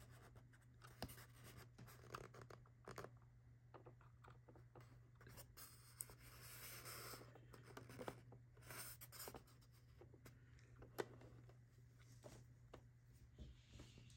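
Faint handling noise on a 1:18 scale diecast model car: fingertips rubbing and scattered small clicks as its hinged license plate is pushed closed and the model is moved on its foam tray, over a low steady hum.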